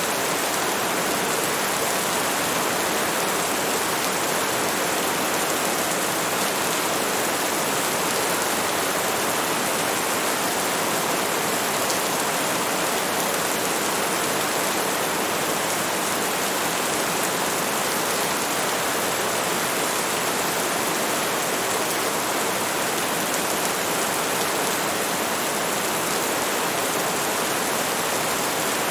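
Heavy rain: a steady, even hiss of a downpour with no separate drops standing out and no thunder.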